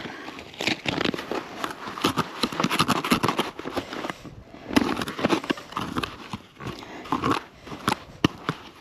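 Packed snow crunching and scraping in quick, irregular strokes, as snow is worked to scrub something clean.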